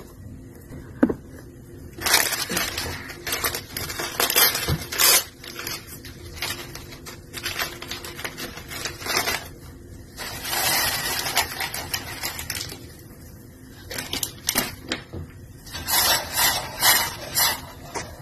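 Handling noise: irregular clicks, knocks and rustling scrapes, coming in several spells of a few seconds each with quieter gaps between.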